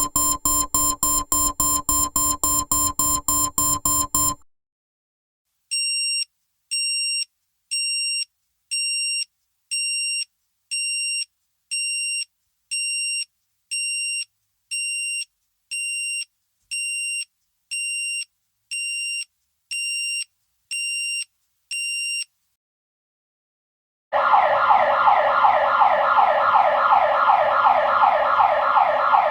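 Three alarm sound effects in turn. First, a buzzing alarm pulsing about four times a second, which stops about four seconds in. After a short pause comes a high electronic beep repeating about once a second. After another pause, a loud siren with fast repeating rising sweeps starts near the end.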